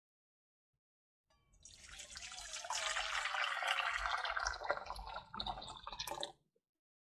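A stream of water pouring into a stainless steel pot, filling it. It starts about a second and a half in and cuts off shortly before the end.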